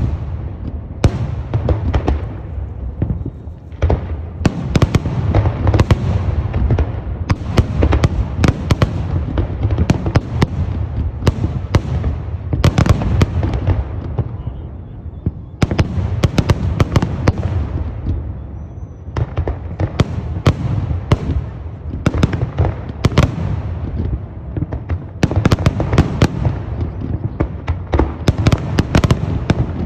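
Fireworks display: a dense, continuous barrage of shell bursts, sharp cracks over deep booms. It eases briefly a few times, then picks up again.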